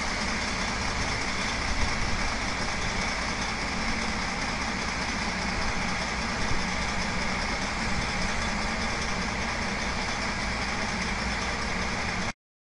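Detroit Diesel Series 60 inline-six diesel idling steadily at about 600 rpm with no load on the dynamometer. The sound cuts off suddenly near the end.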